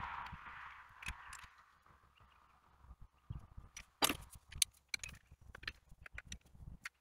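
Hand tools clicking and clinking on metal: a socket, extension and ratchet wrench being fitted and set on the thermostat housing bolts of a John Deere 310G backhoe engine. The clicks are irregular and sharp, and the loudest comes a little after four seconds in.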